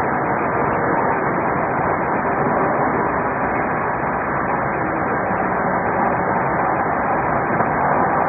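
Steady rushing engine and road noise of a patrol car driving at high speed, heard from inside the car.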